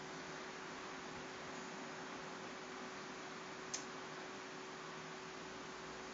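Steady low background hiss with a faint steady hum, and one sharp click a little past halfway.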